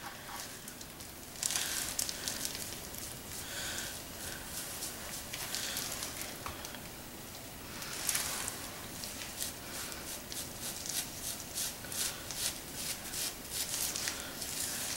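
Hair dye being worked into hair with a plastic tint brush and gloved fingers: soft, scratchy rustling strokes that come faster, several a second, in the second half.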